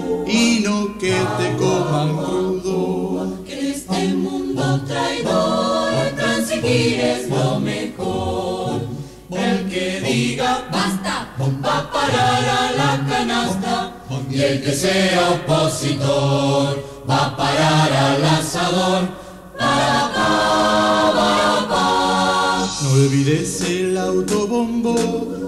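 Polyphonic choir singing a cappella, several voice parts moving together in phrases with short breaths between them.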